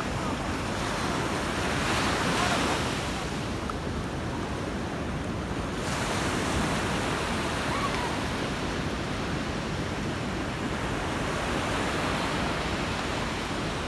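Sea surf washing onto the beach, a steady rush of breaking waves, with one wave surging louder about two seconds in.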